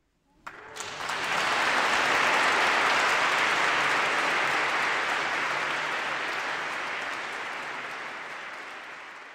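Audience applauding: it breaks out about half a second in, swells within a second, then holds steady and slowly fades toward the end.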